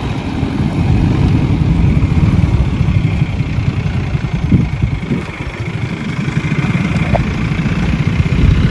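Vehicle engines and road rush heard from a moving motorcycle: a steady, rough low rumble with no single event standing out.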